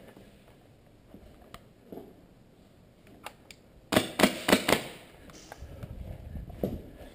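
A quick string of about seven sharp airsoft gun shots about four seconds in, followed by low rumbling movement noise, with a few scattered clicks before.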